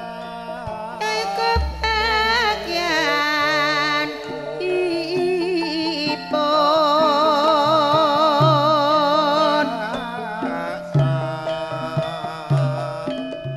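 Javanese gamelan music played through a PA, with a female singer (ledek) holding long notes with a wide, wavering vibrato over the ensemble. Low drum strokes mark the rhythm, and a deep low note sounds about a second and a half in.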